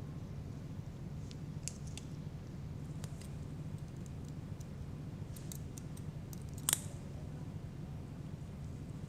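Faint clicks and snips of metal surgical instruments handled during suturing, with one sharper click about seven seconds in, over a steady low hum.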